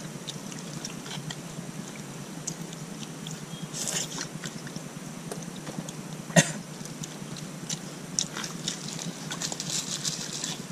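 People eating with their hands and chewing, with scattered small clicks and one sharp click a little past six seconds in.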